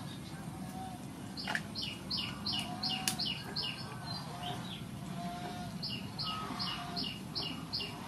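A bird calling in two runs of quick, repeated high notes, about three a second, over a fainter lower note that repeats. Two sharp clicks come about one and a half and three seconds in.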